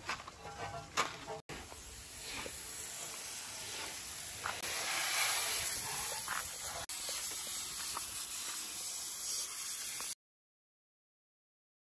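Water spraying from a garden hose onto a car's wheel and tyre: a steady hiss that starts about a second and a half in and cuts off abruptly near the end.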